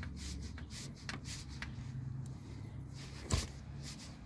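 Metal hand tool working on the oil cooler pipe fittings under the engine: a run of irregular light clicks and scrapes, with one sharper knock about three seconds in.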